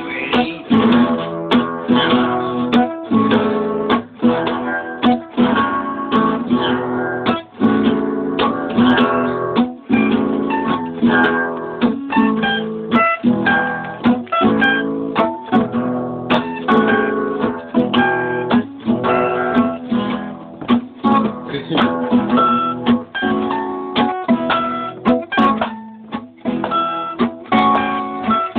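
Guitar played by a beginner of a few weeks, chords strummed and notes picked in a steady run of strokes, each note ringing on.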